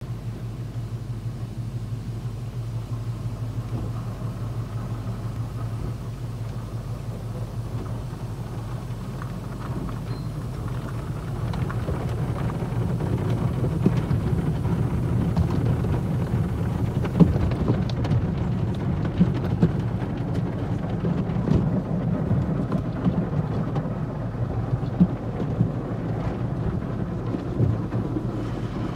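Automatic car wash heard from inside the car's cabin: water and foam spraying against the windshield and body over a steady low hum. From about twelve seconds in it grows louder, with cloth brush strips slapping and knocking against the glass and body.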